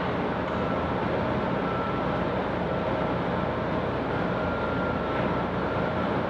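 Steady rumble and hiss of a large ship's machinery, with a faint high tone that comes and goes.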